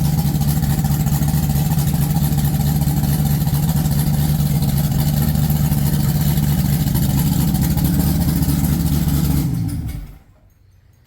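Ford 302 V8 with an F303 cam in an '86 Fox-body Mustang running steadily at idle. It shuts off about ten seconds in, the sound falling away within about half a second.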